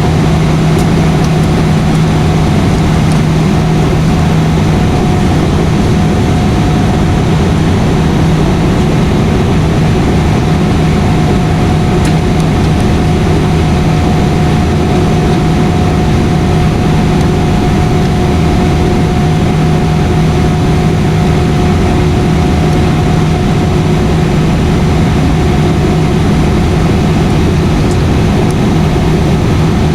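Airliner cabin noise in flight: the engines and rushing air make a loud, steady drone with a low, even hum.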